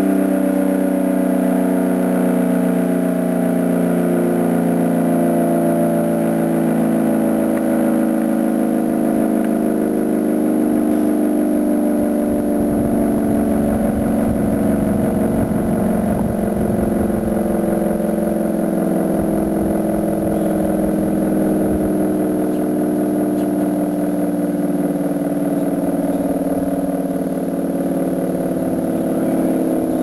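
Federal Signal 500-DH-TT dual-tone rotating outdoor warning siren sounding steadily, a loud two-note chord whose pitch sags slightly lower over the half minute.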